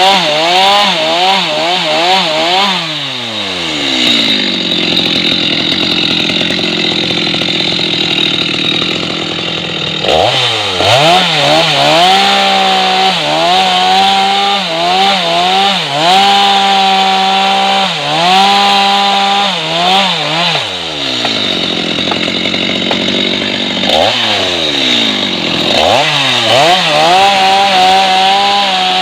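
Stihl MS 250 two-stroke chainsaw running hard, cutting wood. The throttle is repeatedly opened and eased off, so the engine speed swings up and down, dropping low twice and climbing back to full revs.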